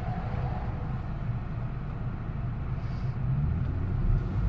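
Car engine and road noise heard from inside the cabin while driving: a steady low rumble that grows a little louder near the end.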